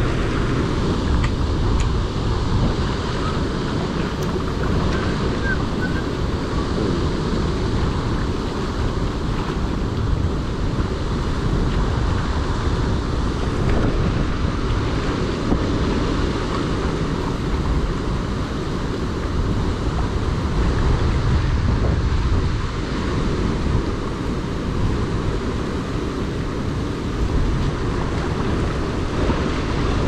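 Strong wind buffeting the microphone in a steady, loud rush, over choppy water slapping against a rocky shore.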